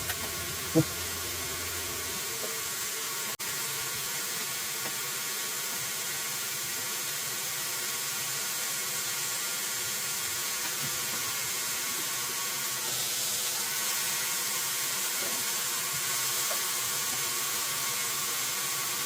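Hot oil sizzling steadily as breaded chicken strips fry, growing a little louder about two-thirds of the way through.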